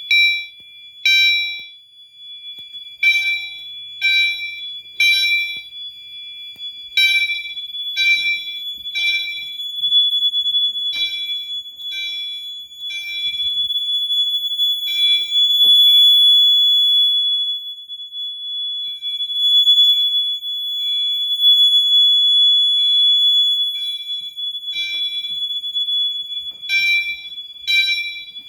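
Fire alarm system notification appliances sounding after the System Sensor 2151 smoke detector has been tripped: horn pulses in groups of three with a pause between groups, the temporal-3 evacuation pattern, over a steady high-pitched tone.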